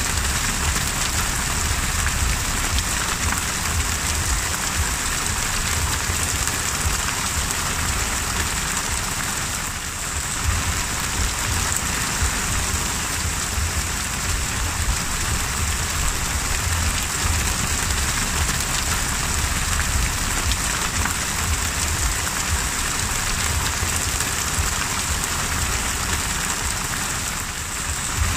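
Heavy rain pelting the open sea surface: a steady, dense hiss of countless drops hitting the water, with a low rumble underneath.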